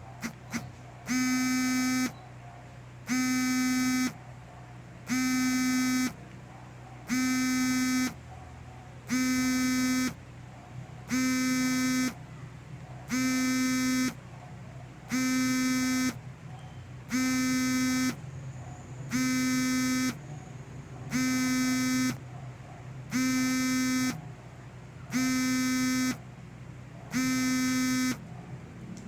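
Electronic buzzer sounding a low buzzing beep about once every two seconds, each beep lasting about a second, fourteen times in a row. There is a brief click just after the start.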